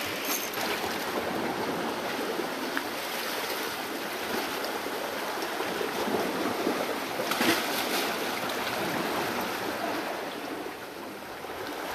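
Small waves washing and splashing against sandstone rock ledges at the water's edge: a steady wash of water, with a slightly louder splash about seven and a half seconds in.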